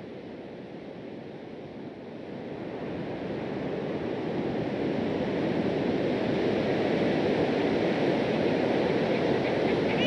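Pacific surf breaking and washing on the shore, a steady rushing noise that fades in over the first few seconds and then holds.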